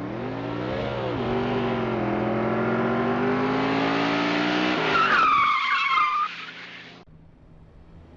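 Car engine revving up, its pitch rising, with a brief dip about a second in and then a slow climb. About five seconds in it gives way to a high tire squeal, and the sound cuts off abruptly about a second later, leaving a faint low hum.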